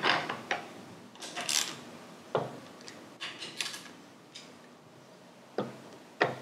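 Metal tools and parts clicking, clinking and knocking while being handled: a quick run of clicks at the start, scattered clinks through the middle and two separate knocks near the end.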